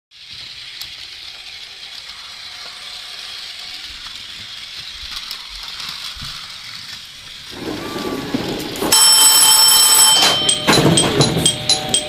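E233-series electric train running and slowing to a stop, a steady hiss giving way to lower rumbling. About nine seconds in, the cab's ATS warning alarm goes off: a steady ring, then a high chime repeating about twice a second.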